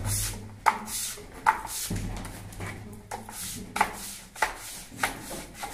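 Plastering float scraped over wet gypsum plaster on a ceiling in a series of short, sharp strokes, about one every second or less, as the surface is smoothed and excess plaster taken off.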